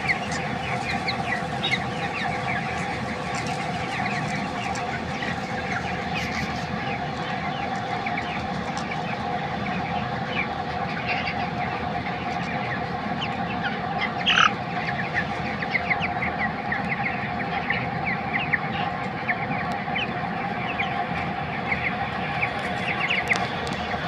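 A flock of broiler chickens about three weeks old peeping and chirping continuously, many short calls overlapping, over a steady hum. One louder call stands out about fourteen seconds in.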